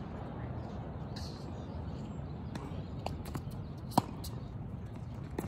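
A tennis racket hitting the ball: one sharp, ringing pop about four seconds in, with fainter ball pops a second before and near the end, over a steady low background rumble.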